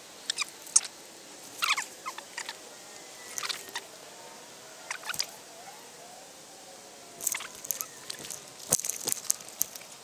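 Irregular clusters of sharp clicks and rustles close to the microphone, from handling a spinning rod and reel, with the densest run near the end.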